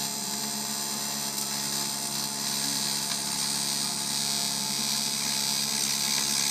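AC TIG welding arc on aluminium from a Fronius MagicWave 2200, a steady electrical buzz with a high hiss. It grows a little louder toward the end as the arc brightens.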